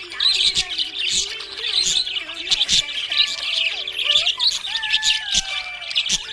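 Budgerigars chirping and warbling continuously in rapid, overlapping chirps, with a longer falling whistle about five seconds in.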